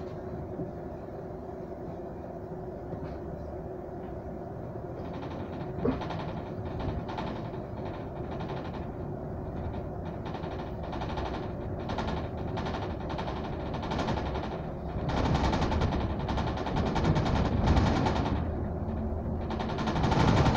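Double-decker bus in motion, heard from inside: a steady engine and road rumble with rattling from the bodywork, growing louder about fifteen seconds in.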